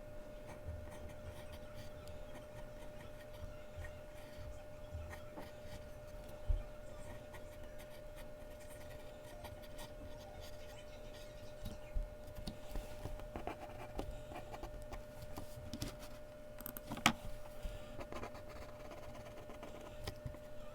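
Faint mechanical pencil strokes scratching on Bristol paper, with a few soft knocks and one sharp tap about seventeen seconds in, over a steady faint hum.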